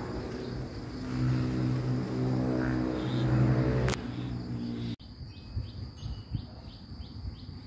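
A motor vehicle's engine runs with a steady low hum that grows louder, then cuts off abruptly about four seconds in. Then a bird chirps repeatedly in quick short calls over a steady high whine.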